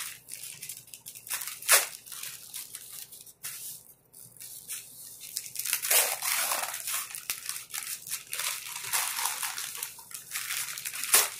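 Packing material rustling and crinkling as a package is unwrapped by hand, in irregular bursts with a sharp crackle just under two seconds in.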